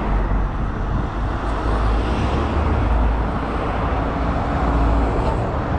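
Road traffic: cars and other vehicles passing on a multi-lane road, a steady rumble.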